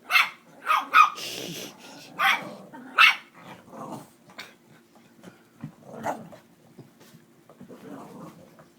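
Dogs barking and growling in rough play between a puppy and older dogs: a run of loud, sharp barks in the first three seconds, then quieter, scattered ones.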